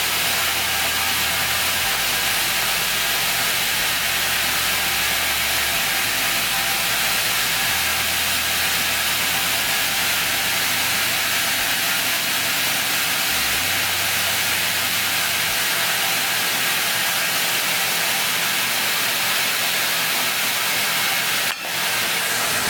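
Homemade 2x72-inch belt grinder running steadily, its abrasive belt hissing over the wheels during a test run of the belt tracking.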